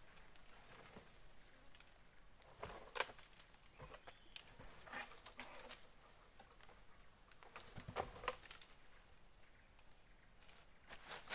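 Scattered light knocks and clicks of wooden poles being handled and laid across a log frame, with rustling in between.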